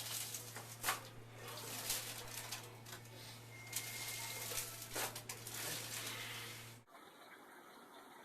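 Sharp clicks and cracks with rustling handling sounds during a chiropractic adjustment, over a steady low electrical hum that stops abruptly near the end.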